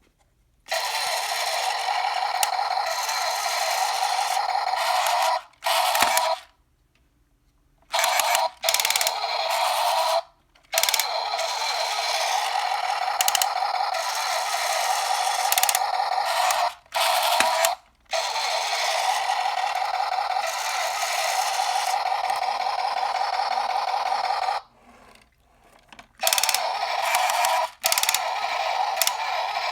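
A toy backhoe loader's small electric motor and plastic gearbox running with a whirring rattle. It starts and stops abruptly in runs of a few seconds, with short silent breaks between them.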